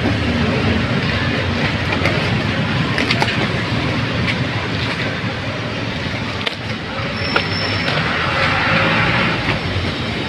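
Steady rumble of a running motor vehicle engine amid street traffic, with scattered light knocks and a brief rush of louder hiss about eight seconds in.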